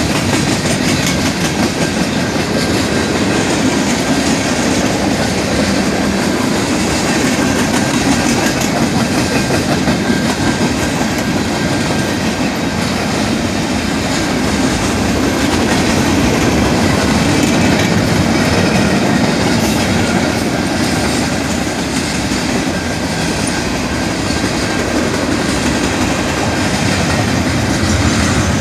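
Canadian Pacific freight train's cars rolling past a grade crossing: a loud, steady rumble of wheels on rail with clattering over the joints.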